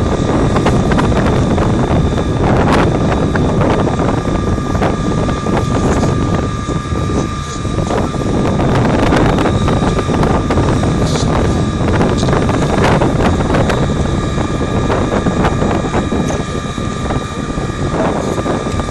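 A fire engine's pump running steadily while a hose jet sprays a burning car, giving a loud, even rush with a constant machine whine over it.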